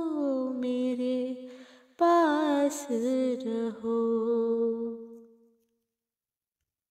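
A woman's voice humming the closing melody of a ghazal: a long held note that slides down, then a short wavering phrase that fades out about five and a half seconds in.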